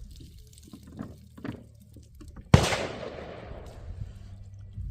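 A single sharp, loud bang about two and a half seconds in, with a tail that dies away over about a second and a half. Fainter knocks come before it, and water drips and trickles throughout.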